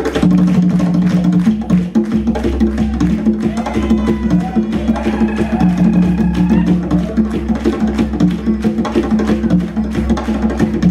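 Hand drumming on a set of three djembes: fast, dense strokes in a driving rhythm, over a sustained low bass part that steps between a few notes.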